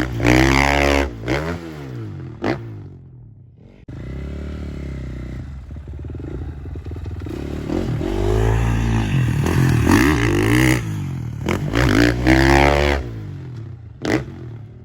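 Dirt bike engines revving up and down through the gears. The first fades away about three seconds in. Another cuts in abruptly about a second later and builds to loud high revs before dropping off near the end.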